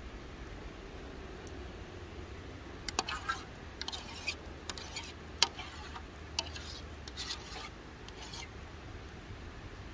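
A utensil scraping and clicking in a pan of eggs cooking over campfire coals: a run of short scrapes and clicks starting about three seconds in, the sharpest about halfway through, over a steady low rumble.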